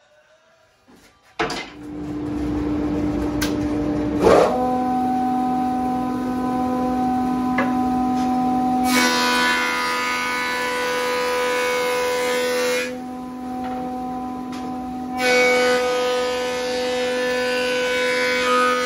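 A Hammer planer-thicknesser starts up about a second and a half in and runs with a steady hum. Twice it planes a board, each pass a few seconds of loud, even cutting noise.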